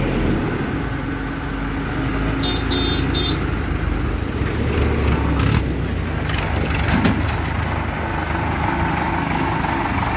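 Heavy diesel engines idling steadily, with a few short high chirps about two and a half seconds in and a run of sharp clicks around the middle.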